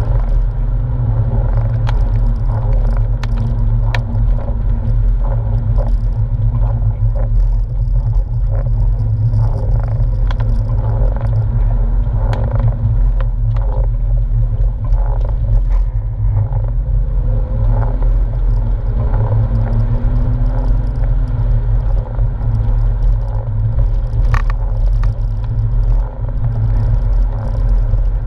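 Steady low rumble of a Porsche 997 driving on a wet road, heard from inside the cabin: engine and tyre noise, with occasional light clicks.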